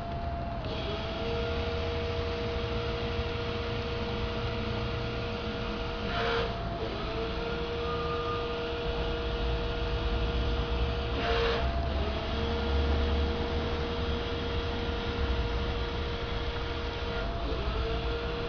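A CAT 6,000 lb electric forklift running, its drive motor and controller giving a steady two-tone whine over a low rumble. About a third of the way in, about two thirds in and near the end, the whine dips briefly and glides back, each time with a short hiss.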